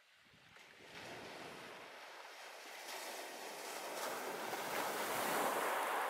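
A small sea wave breaking and washing up the beach, a rushing sound that swells over several seconds and is loudest near the end.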